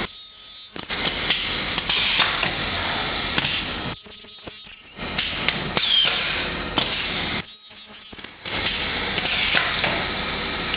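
Automatic turntable ultrasonic plastic welding machine running through repeated cycles: stretches of about three seconds of noisy mechanical clatter with sharp knocks. Each stretch is broken by a brief, much quieter gap of about a second, twice here.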